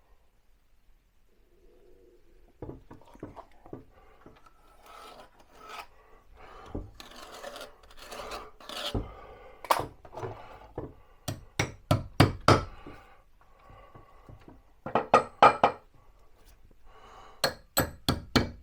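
Screws in a wooden board being tapped with a hammer in quick runs of sharp knocks, dimpling the wall behind to mark where to drill. The knocks are mixed with the rubbing and handling of the wood.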